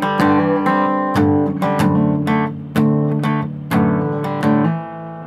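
Taylor acoustic guitar being strummed, a run of chords picked up through a DSLR camera's built-in microphone. The strums come every half second to a second and each chord rings on. It dies away briefly near the end.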